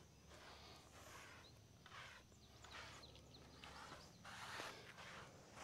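Near silence with a steady low hum and faint, irregular swishing strokes, about one a second.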